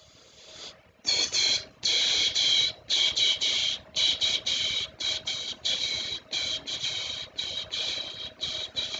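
High-pitched beeping alarm, pulsing on and off about twice a second, loud at first and slowly getting quieter.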